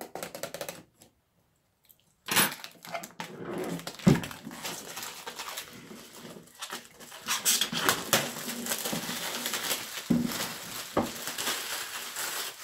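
Thin plastic shrink-wrap film being torn off a cardboard game box and crumpled in the hands: a dense crinkling crackle that starts about two seconds in, with a single sharp, louder knock about four seconds in.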